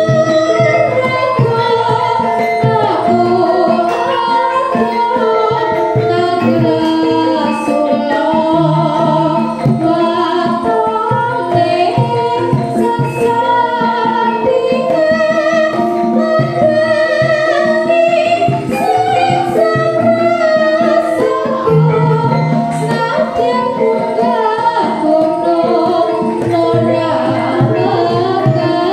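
Javanese gamelan playing in pelog barang, its hanging bronze gongs and kettle gongs sounding steadily, with a young female singer (sindhen) singing the melody over it.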